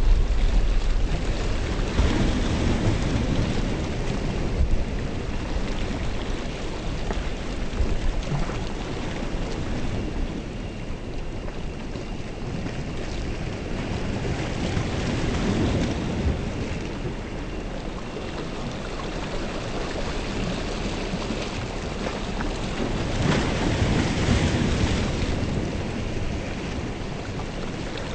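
Approaching thunderstorm: a steady rushing noise with low rumbles that swell three times, a couple of seconds in, midway and near the end.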